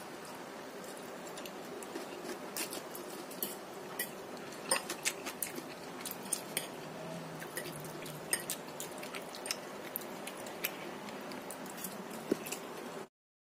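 A fork clicking and scraping against a plate as noodles are picked up and eaten, in irregular light clinks over a steady low background hum. The sound cuts off suddenly just before the end.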